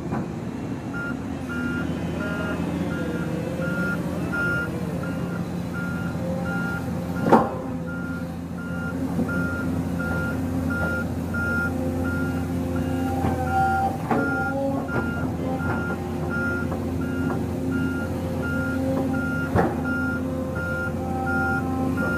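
Volvo EW205D wheeled excavator's diesel engine running while its travel alarm beeps steadily, about one and a half beeps a second. Sharp knocks are heard about seven seconds in and again near the end, with the first one the loudest.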